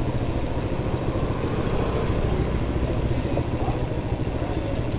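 Honda motorcycle engine running steadily at a slow crawl, heard from the rider's seat.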